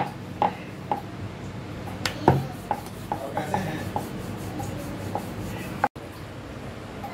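Wooden rolling pin rolling out thin dough on a round wooden board (chakla): rubbing, with irregular light knocks of wood on wood as the pin is pushed back and forth.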